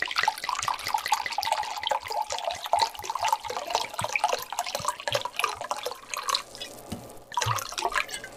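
Red wine being poured from a bottle into a measuring cup, a steady pour that stops about six seconds in, then a second short pour near the end.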